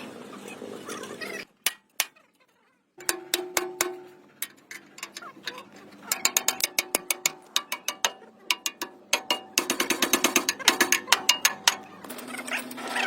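Runs of rapid, sharp mechanical clicks, many a second, from hand work on metal. Near the start there is a brief drop-out broken by two single clicks.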